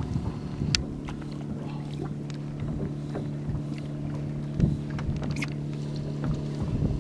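A boat's motor running steadily at low speed, an even low hum, with a few light clicks and one louder knock about four and a half seconds in.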